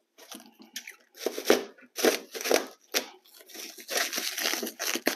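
Clear plastic wrap and packing paper being torn and crinkled off a metal part, in a run of irregular rustling tears.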